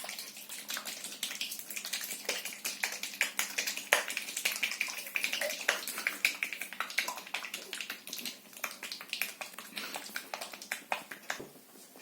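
Plastic slime-shaker cup being shaken with its lid closed to mix water into the slime: a dense, rapid clicking and knocking that stops near the end.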